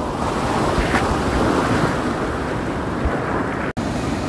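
Ocean surf rushing and splashing close around the phone at the waterline, a steady wash of breaking waves. The sound drops out for an instant near the end.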